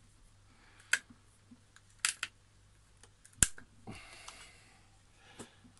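Bonsai cutters snipping at stubs on a crape myrtle's bare trunk: a few sharp clicks about a second apart, the loudest about three and a half seconds in, then a short rustle. The snips are refining old pruning cuts.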